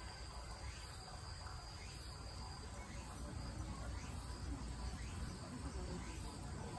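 Faint insect chirping, with a short chirp repeating about once a second, over a low steady rumble of background noise.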